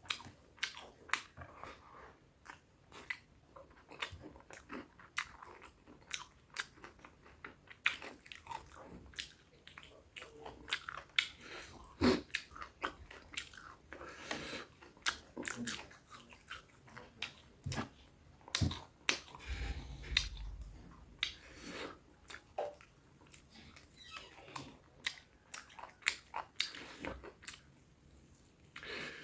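A person chewing and biting food close to the microphone: irregular wet smacks and clicks of the mouth, with some crunching.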